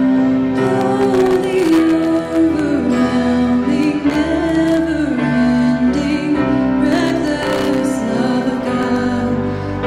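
Contemporary worship song: a woman singing a slow melody with long held notes over instrumental accompaniment.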